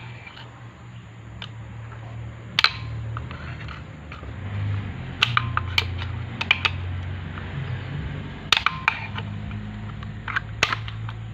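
Scattered sharp clicks and knocks of tools and parts being handled, about six at irregular moments, over a low steady hum.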